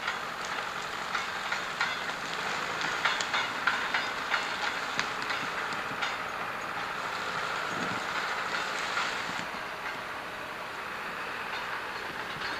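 Small crawler loader running and skidding a log on a chain, its steel tracks clanking in a rapid run of knocks over the engine. The sound turns steadier and a little fainter from about ten seconds in.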